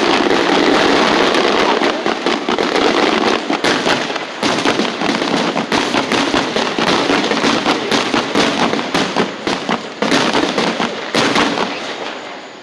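Fireworks going off in a dense, continuous crackle of rapid pops, with a few louder bangs among them.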